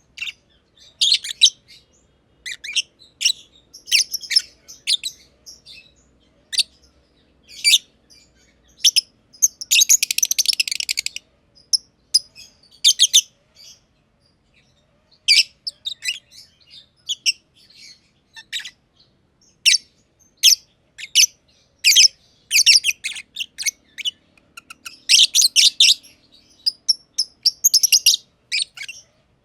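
Black-masked lovebirds (Agapornis personatus) chirping: quick, high, sharp chirps in irregular clusters, with a denser, buzzy stretch of chatter about a third of the way in and a brief lull about halfway.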